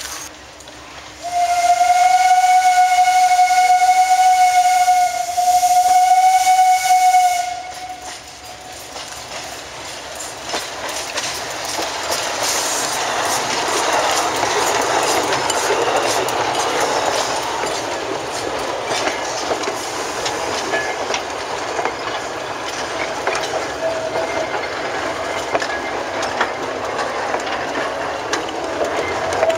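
Las49 narrow-gauge steam locomotive's whistle blowing one steady, loud note for about six seconds, with a short break near the end. The train then runs past, its wheels and wagons clattering and rattling as it nears and goes by.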